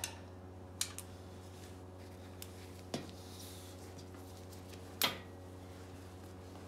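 Breaker bar and socket on a TDV6 cylinder head bolt giving several separate metallic clicks and knocks as the bolt is turned through its 180-degree final tightening step, the loudest knock about five seconds in. A steady low hum runs underneath.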